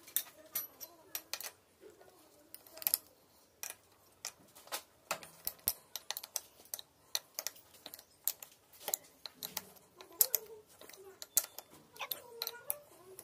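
Irregular light clicks, taps and metallic knocks of hand tools being worked on a wood planer machine while its blades are set, a few sharper knocks standing out.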